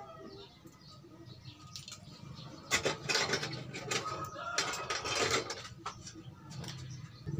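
Clinking and rattling of wire and tools being handled over an LED TV's metal backlight panel, busiest from about three to five and a half seconds in.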